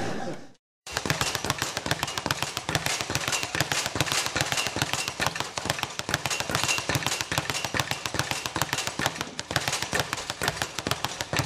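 Dense, irregular crackling made of many small sharp clicks and taps, starting about a second in after a brief gap of silence and running on evenly.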